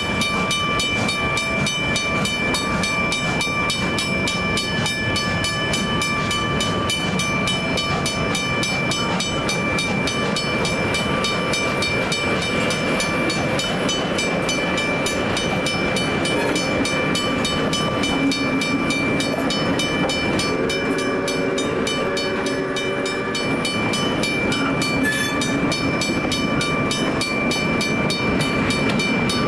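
Level-crossing warning bell ringing steadily with fast, even strokes as heritage passenger carriages roll through the crossing, their wheels rumbling on the rails. A brief pitched sound rises over it about two-thirds of the way through.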